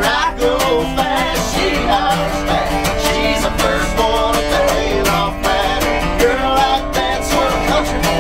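Live acoustic country music: a strummed acoustic guitar and a resonator guitar playing together, with voices singing.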